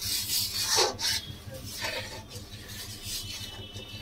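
A spatula scraping and stirring through thick curry gravy in a metal kadai, a few rasping strokes, the loudest in the first second and another about two seconds in.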